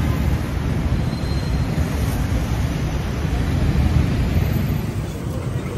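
Wind buffeting the phone's microphone: a loud, gusty low rumble with no distinct events.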